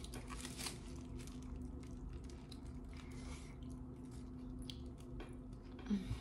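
A person chewing and biting into a chicken burrito: faint mouth sounds with many small clicks.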